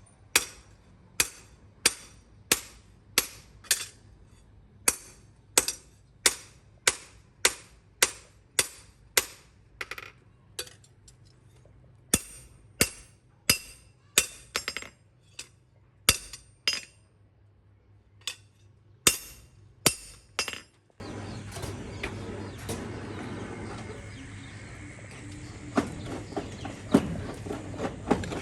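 Hammer blows on metal at the anvil, sharp ringing strikes at roughly one to two a second with a brief pause about two-thirds through. About three-quarters of the way in the strikes stop and a steady rushing noise with scattered small clinks and knocks begins.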